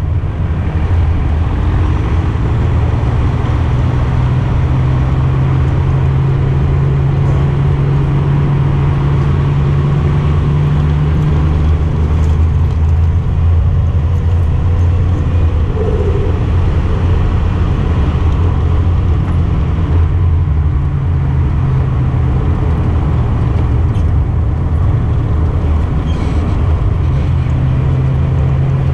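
Datsun 240Z engine running at a steady cruise, a constant low drone that shifts only slightly in pitch, under a steady wash of tyre and wind noise.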